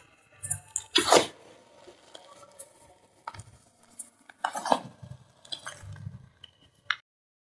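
Gym chalk thins being crushed into powder: a string of crisp, powdery crunches, the loudest about a second in and another cluster around four and a half seconds in. The sound cuts off abruptly near the end.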